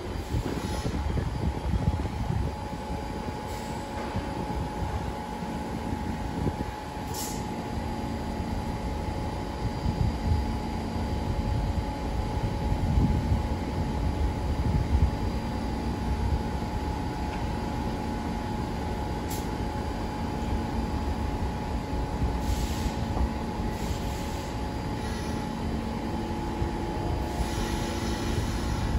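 R46 subway train on the elevated tracks, a steady low rumble with a constant hum. A few short high hisses come from it about a quarter of the way in and again around two-thirds through.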